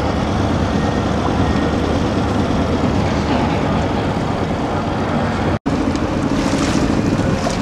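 Wind buffeting the microphone and water noise on board a yacht under way, a steady noise heaviest in the low end, cutting out for an instant about two thirds of the way through.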